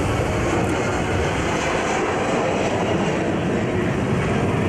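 Boeing 767 twin jet engines at takeoff thrust as the airliner climbs away after liftoff: a loud, steady rush of engine noise.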